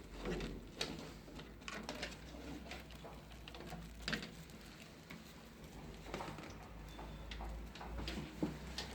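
Scattered light clicks and taps, as of things being handled, over a low steady hum.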